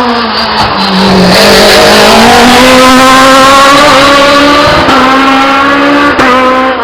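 Peugeot 306 Maxi rally car's naturally aspirated four-cylinder engine, very loud at high revs. The pitch drops in the first second, then climbs under hard acceleration, with brief breaks about five and six seconds in like quick gear changes.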